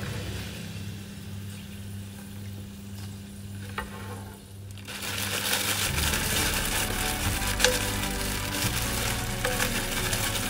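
Hot oil in a wok sizzling as fish crackers (keropok) fry. The sizzle is low at first, then about five seconds in it jumps to a loud hiss with small crackles as a fresh batch of raw crackers goes into the oil.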